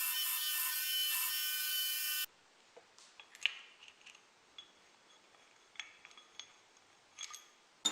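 A power tool's motor running with a steady whine, cut off abruptly about two seconds in, followed by faint scattered clicks and taps of small metal parts being handled.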